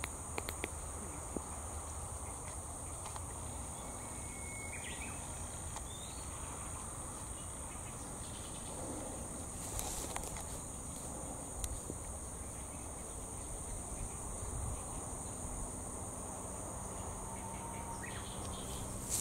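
Steady, high-pitched insect chorus, shrilling without a break over a faint outdoor hiss, with a few faint clicks near the start.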